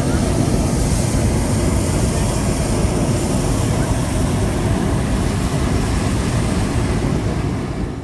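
Hot-air balloon's propane burner firing in one long, loud, steady blast that cuts off near the end.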